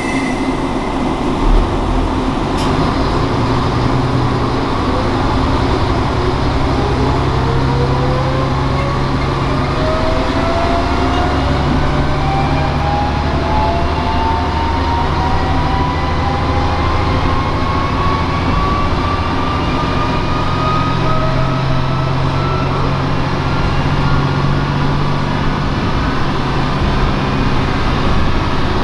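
Diesel railcar heard from inside the cabin, pulling away from the station. A steady low engine drone runs under a whine that climbs slowly and evenly in pitch as the car gathers speed. There is a single knock about a second and a half in.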